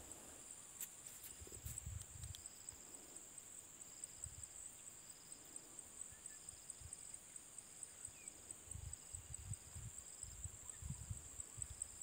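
Insects trilling: a steady high-pitched chirring with a rapid, even pulse, and a second, lower trill that starts and stops in short stretches. Occasional low rumbles on the microphone.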